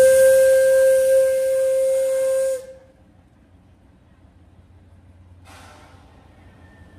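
Whistle of the Shay SL31 geared steam locomotive blowing one steady single-note blast over a rush of steam, cutting off sharply about two and a half seconds in. A short hiss comes about three seconds later.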